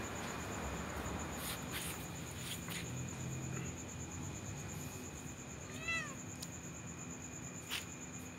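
A cat gives one short meow, rising then falling in pitch, about six seconds in, over steady cricket chirping.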